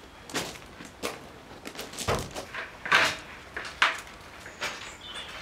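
Irregular wooden knocks and clunks as tongue-and-groove timber roof boards are handled and set onto the walls of a log-cabin shed, the loudest about three seconds in.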